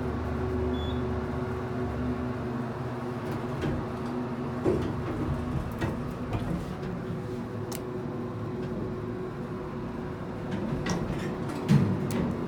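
Modernized traction elevator arriving at a floor, its doors sliding open over a steady low hum. There are a few clicks and knocks, the loudest near the end as a car-station button is pressed.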